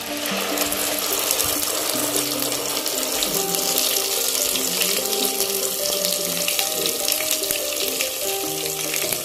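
Hot mustard oil sizzling and crackling as a wet ground gravy paste is poured into the kadai. It makes a steady frying hiss with fine crackles.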